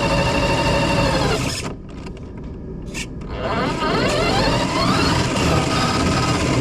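FPV drone's brushless motors whining. About a second and a half in the pitch drops and the motors go nearly quiet for under two seconds as the throttle is cut, then the whine rises steadily as the throttle comes back up and holds at a steady pitch.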